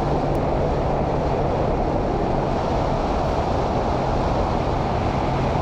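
A bass boat's outboard motor running steadily at cruising speed. A constant low hum sits under a loud, even rush of wind and water.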